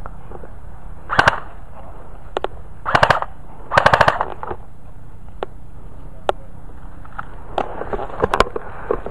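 Airsoft rifles firing short full-auto bursts of rapid, rattling shots. There are three bursts, about one, three and four seconds in, the last the longest, with scattered single shots in between.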